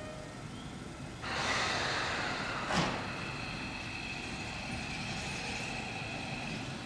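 Keio 8000 series electric commuter train letting off a sudden loud hiss of air about a second in, its brakes releasing as it starts off. A sharp click follows, then a steady high whine from the train as it begins to pull out.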